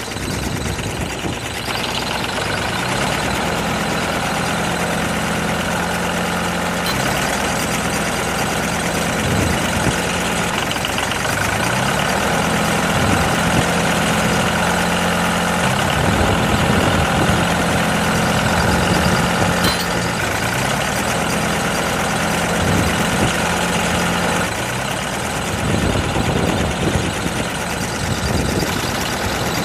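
A motor running with a steady hum. Its pitch steps up and down a few times, and about 25 seconds in the hum gives way to a rougher, uneven running sound.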